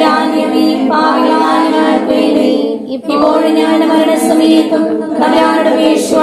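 Women's voices singing a prayer together in unison, unaccompanied, in phrases with short breaths between them: the group's response in a rosary recitation.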